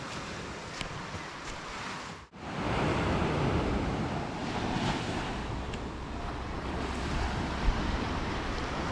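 Sea surf washing onto a beach, with wind buffeting the microphone as a low rumble. The sound breaks off for an instant about two seconds in and comes back louder.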